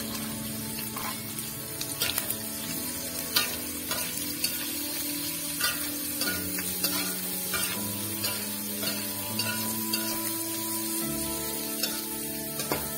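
Dried anchovies, chilies, shallots and garlic sizzling in hot oil in a wok, stirred with a metal spatula that scrapes and clicks against the pan again and again.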